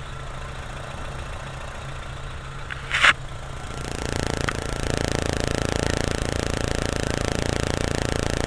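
VW 2.0L ABA four-cylinder engine running, with a short loud burst of noise about three seconds in. From about four seconds on the engine sound grows louder and harsher and stays that way. The engine has an intermittent misfire under load, traced to arcing between the rotor and a worn distributor cap.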